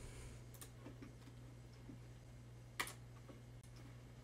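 A few faint computer mouse clicks over a low steady hum, the clearest about three seconds in.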